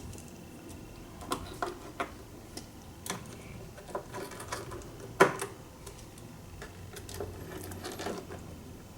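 Irregular small clicks and taps of a screwdriver turning screws and knocking against the casing of a Boss ME-80 multi-effects unit during reassembly, with one louder knock about five seconds in.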